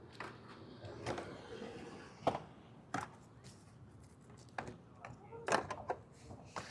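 Irregular sharp clicks and knocks, about eight over several seconds, with faint voices underneath.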